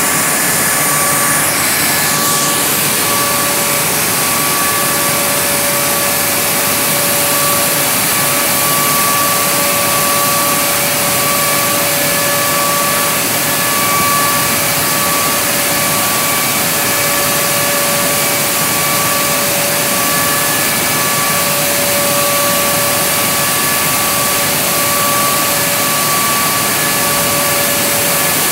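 Dust extraction machine running steadily: a constant rushing air noise with a steady high whine.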